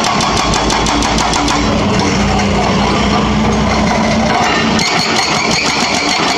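Hitachi Zaxis 210F excavator's hydraulic breaker hammering a concrete road slab in rapid, even blows over the excavator's running diesel engine. The hammering eases off in the middle while the chisel is lifted, leaving mostly the engine, and comes back strongly about five seconds in.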